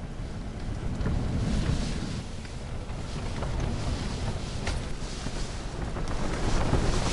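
Gusty wind buffeting a fishing tent's fabric walls, with low rumbling wind noise on the microphone; the gusts swell stronger near the end.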